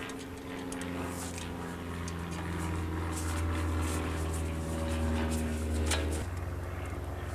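Power screwdriver motor running as it drives the small rotor retaining screws into the brake rotor and hub. It hums steadily and grows a little louder, then drops to a lower, lighter running sound about six seconds in as the screw seats.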